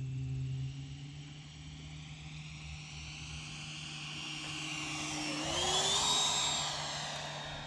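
Freewing Avanti S 80 mm electric ducted-fan sport jet flying a low pass: a whine over a rush of air that swells to its loudest about six seconds in. The whine steps up in pitch about five seconds in, then eases off near the end.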